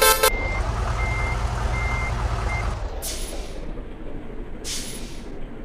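A bus's musical 'basuri' horn cuts off just after the start. Four short, high reversing beeps follow, about one every 0.8 s, over a low engine rumble. Two short bursts of air hiss follow later, about two seconds apart.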